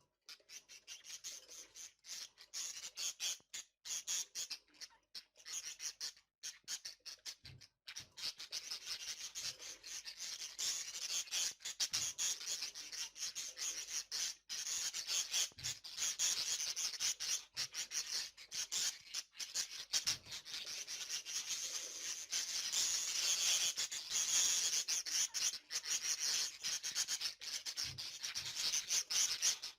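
A flock of budgerigars chattering and chirping all together in a dense high-pitched twitter. It is patchy at first and runs on unbroken from about eight seconds in.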